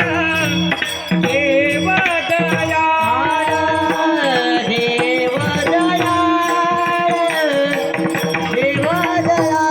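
Marathi devotional abhang singing: a male voice draws out long, gliding melodic phrases without clear words, over tabla and a steady held drone.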